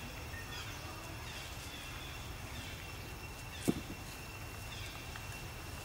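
Outdoor ambience: a low steady rumble under a thin, steady high tone, with faint short chirps recurring throughout. One sharp click sounds a little past the middle.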